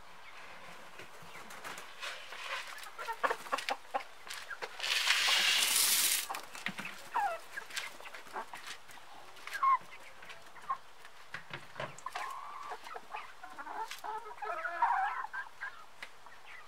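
A flock of domestic hens clucking, with a few short falling calls and many sharp ticks as they peck at feed on the dirt floor. About five seconds in there is a loud rushing noise lasting just over a second.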